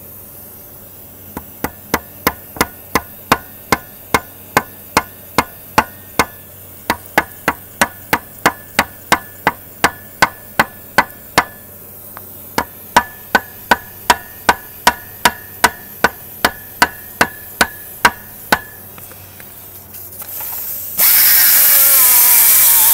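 A long run of evenly spaced sharp metallic knocks, about three a second with two short pauses, each leaving a brief ring. About two seconds before the end, a die grinder with an abrasive disc starts up and runs loud and steady, grinding the cracked aluminium lower unit of an Evinrude outboard to prepare it for welding.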